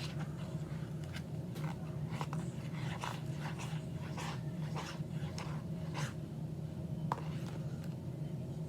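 Thick glitter slime being stirred and worked in a bowl: irregular short sticky clicks, over a steady low hum.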